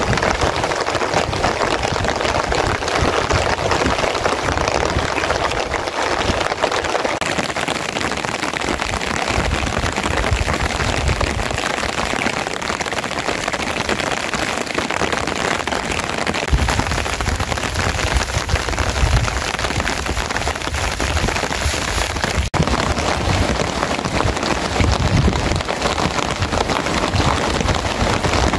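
Steady rain falling, a dense even hiss of drops, with a low rumble that comes and goes in the second half.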